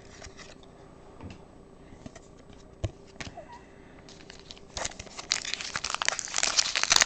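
A few faint clicks, then a trading-card pack wrapper being torn open and crinkled, starting about five seconds in and loudest near the end.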